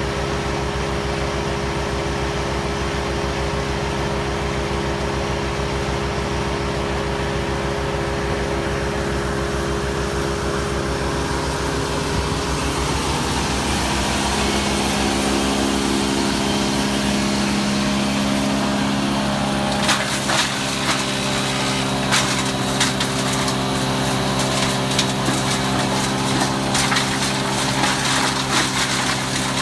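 Wood chipper running steadily, its engine note shifting about halfway through. In the last third, branches are fed in and crack and splinter as they are chipped.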